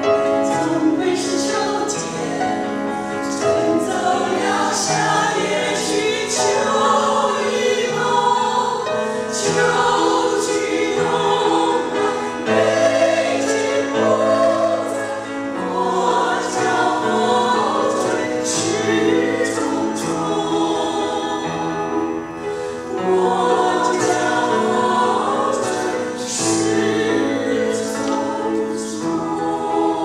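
Women's choir singing a Chinese song in parts, holding chords that shift from note to note, with the consonants of the words clear.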